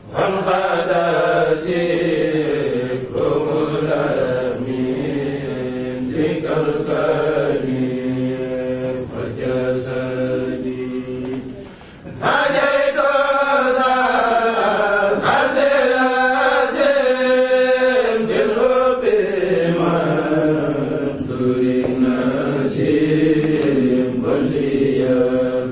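Group of men's voices chanting Mouride khassaid, Arabic devotional poems, in unison with long held notes. About twelve seconds in the chant gets louder and rises in pitch, with more ornamented, melodic lines.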